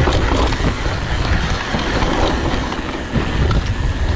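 Mountain bike rattling and clattering over a rough downhill trail, tyres rumbling on dirt with a constant run of small knocks and clicks.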